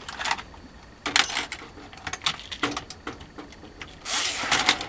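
Scattered clicks, knocks and scrapes of plastic and metal computer parts being handled and pried at while an all-in-one PC is taken apart, with a louder scrape lasting under a second near the end.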